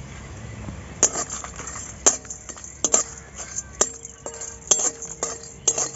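A metal spatula knocking and scraping against an aluminium kadai while whole spices are dry-roasted without oil, with a sharp clink roughly every second from about a second in. The pan rings briefly after several strikes.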